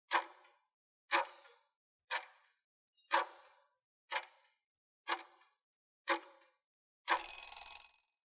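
Clock-tick sound effect for an on-screen countdown timer, one tick a second, seven ticks. About seven seconds in, the ticking gives way to a harsher, buzzing sound about a second long, marking the end of the countdown.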